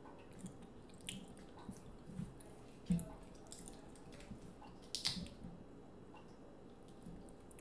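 Close-miked wet peeling of a sauce-covered shrimp by hand: scattered small sticky clicks and drips of sauce, with a louder thump about 3 s in and a sharp crackling snap of shell about 5 s in.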